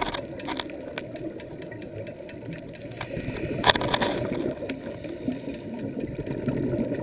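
Muffled underwater ambience heard through a GoPro dive housing: a steady low rumble with scattered faint clicks, and a louder burst of noise about three and a half seconds in.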